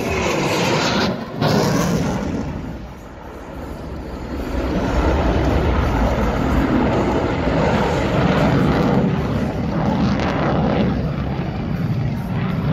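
Jet noise from an F-35A fighter's single Pratt & Whitney F135 turbofan as the jet flies its display overhead. It breaks off briefly about a second in, fades a little, then swells into a loud, steady low rumble from about five seconds in.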